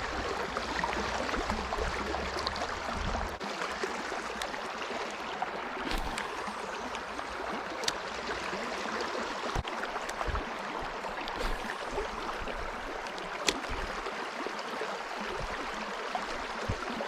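Steady rush of flowing river water, with a low rumble in the first few seconds and a few sharp clicks scattered through.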